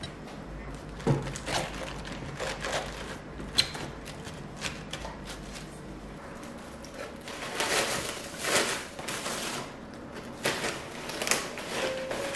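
Food-prep handling sounds: napa cabbage leaves and plastic packaging rustling, with scattered light knocks of plastic containers. There is a thump about a second in, a sharp click a few seconds later, and longer stretches of rustling past the middle.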